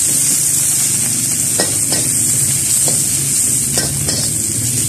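Julienned ginger and lemongrass sizzling in hot oil in a steel wok, over a steady hiss. A metal spatula stirs them, scraping the pan and knocking against it several times.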